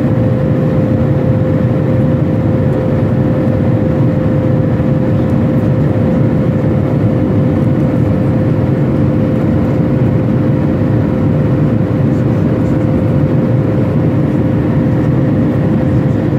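Airliner cabin noise in cruise flight: a loud, unbroken roar of engines and rushing air with a steady hum running through it.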